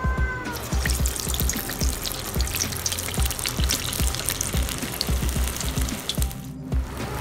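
Urad dal vada batter deep-frying in hot oil in an iron kadai: a dense, steady crackling sizzle that starts about half a second in and briefly cuts out near the end.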